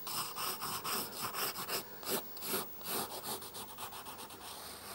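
Pencil drawing on paper: a run of short scratching strokes as lines are drawn and curved.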